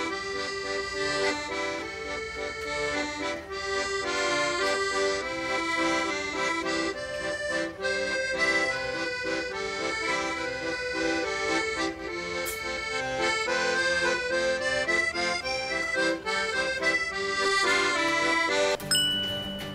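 Background instrumental music, a tune of quickly changing notes; it breaks off into a different piece about a second before the end.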